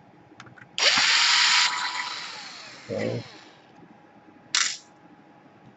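Electric screwdriver backing out laptop case screws: the motor whines for about a second, starting about a second in, then winds down with a falling pitch, and runs again in a short burst near the end.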